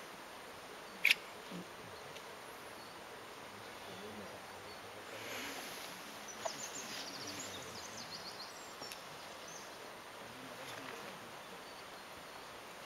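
Steady hiss of rain outdoors, with one sharp click about a second in and a brief burst of rapid high chirping around the middle.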